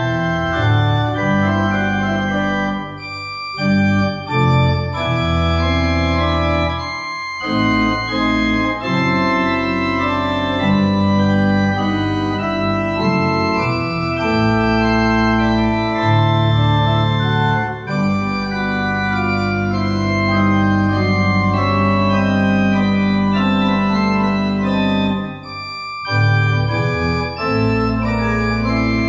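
Church organ played on the manuals and pedals: sustained chords over a deep pedal bass, moving from chord to chord with brief breaks between phrases.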